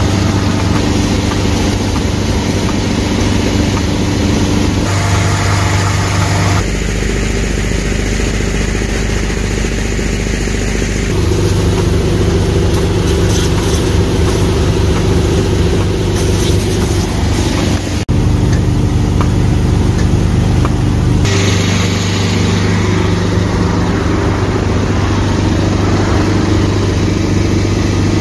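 Motor-driven pump running steadily with a strong low hum while pumping ballast fluid into a tractor tire; the hum changes abruptly several times.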